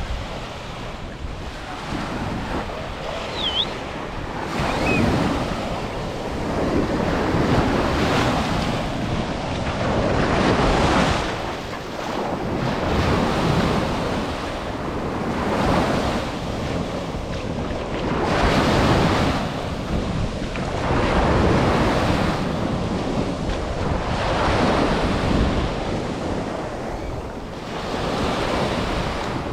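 Ocean surf breaking and washing up the beach, swelling and ebbing every few seconds, with wind buffeting the microphone.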